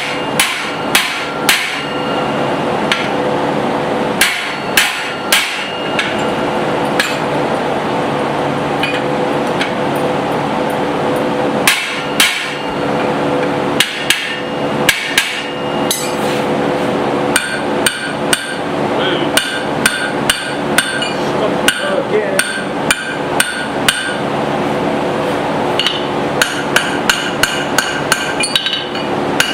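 Hand hammer striking a steel drift set in the eye of a small hot hammer head on an anvil, ringing blows, irregular at first and then a quicker run of strikes in the second half, over a steady rushing background noise.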